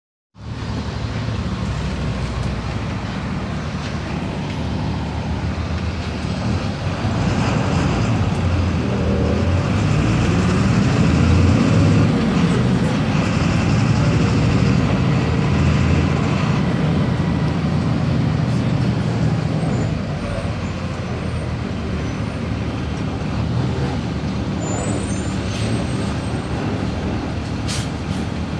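Diesel engine of a Volkswagen 17.230 EOD bus running steadily. It grows louder from about seven seconds in, as if pulling harder, and eases back again after about twenty seconds.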